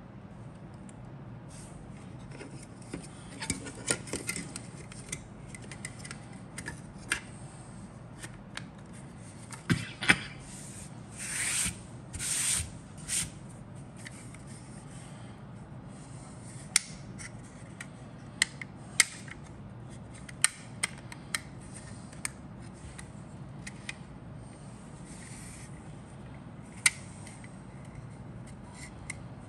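Injection-moulded plastic fuselage halves of a 1/48 Fujimi Mirage III C kit being handled and pressed together by hand, giving scattered sharp plastic clicks and taps. There are a few short scraping rubs about ten to thirteen seconds in.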